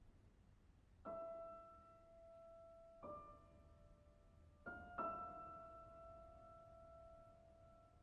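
Slow, quiet piano music: four single notes struck a second or two apart, each left to ring and fade.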